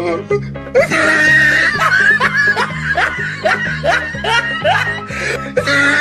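Background music with a steady repeating beat, with laughter over it from about a second in.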